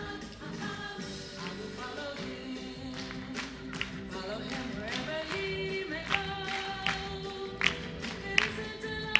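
Dance music with singing and a beat. Sharp percussive hits come out strongly from about five seconds in.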